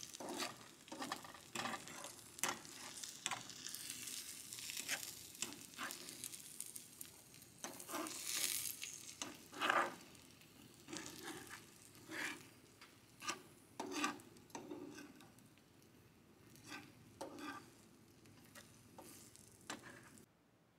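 Eggs frying in a pan, sizzling, with a utensil scraping and tapping against the pan many times. The sizzle grows fainter in the second half.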